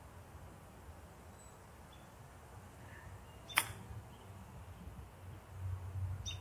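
A golf club strikes the ball once on a chip shot: a single sharp click about three and a half seconds in. Faint bird chirps, with a short high one near the end.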